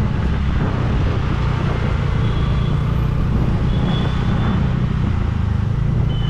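Riding a scooter slowly in dense city traffic: a steady low rumble of engine, road and wind noise on the camera microphone, with a couple of short faint horn beeps from surrounding traffic about two and four seconds in.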